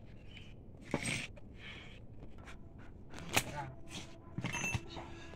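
A few scattered clicks and clinks of small metal parts as a chainsaw's chain and sprocket are handled, one ringing clink coming late on.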